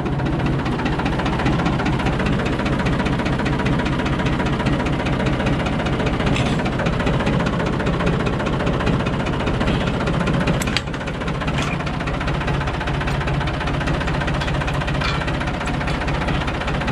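Farm tractor engine idling steadily close by, with a low knocking run to it. A sharp click about eleven seconds in, after which the level drops slightly.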